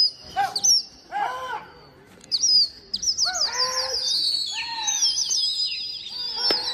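Birds chirping: a few short calls early, then many high, quickly repeated chirps from about three seconds in. A single sharp crack comes near the end.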